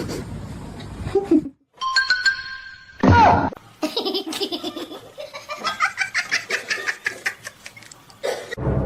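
Laughter: a long run of quick, rhythmic laughs, with music.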